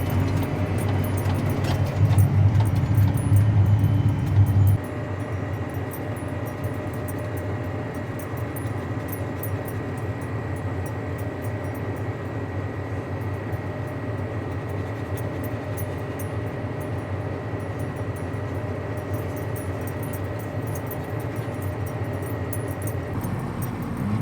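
Vehicle engine running: a louder, deeper engine sound for about the first five seconds, then, after an abrupt change, a steadier, quieter drone with a faint high steady whine over it.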